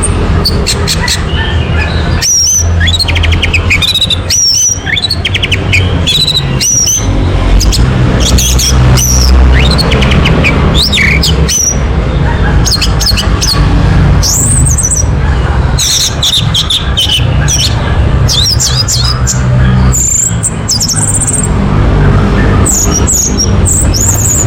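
Orange-headed thrush song: a varied stream of short whistles, slurred notes and quick trills, over a constant low hum.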